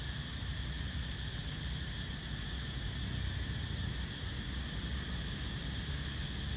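Steady forest ambience: insects keep up a continuous high drone, over an uneven low rumble.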